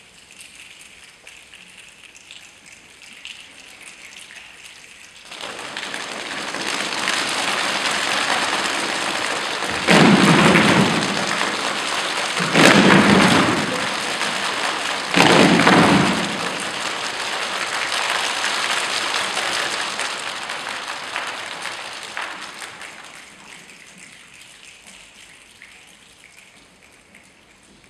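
Rainstorm effect: a rain-like hiss swells up about five seconds in, three heavy thunder-like rumbles come in quick succession around the middle, and then it slowly fades away.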